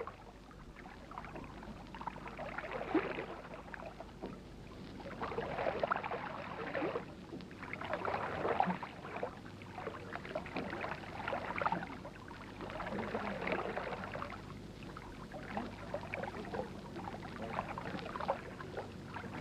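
Water lapping and swishing in slow surges that swell and fade every two to three seconds.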